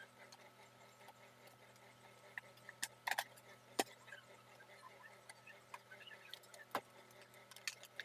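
A faint steady hum with scattered sharp clicks and taps; the loudest come a little after three seconds, near four seconds and near seven seconds.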